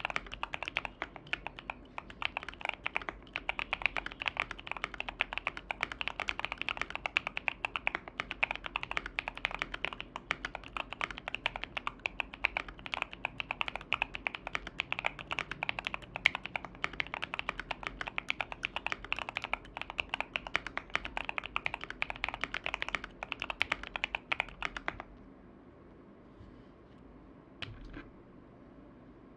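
Fast, continuous typing on a KBD67 Lite mechanical keyboard fitted with Tecsee Sapphire V2 tactile switches on a foam-dampened POM plate. The typing stops about 25 seconds in, with one more keystroke near the end.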